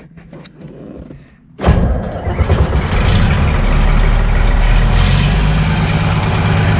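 John Deere 4030's six-cylinder diesel engine started: a few faint clicks, then about a second and a half in the engine catches suddenly and settles into a steady loud run.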